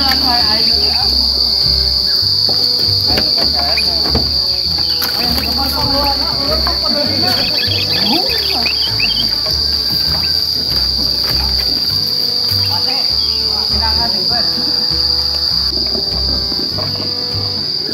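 A steady, loud, high-pitched drone of insects, like a cicada or cricket chorus. Short chirping, pitch-gliding calls of sooty-headed bulbuls are scattered over it.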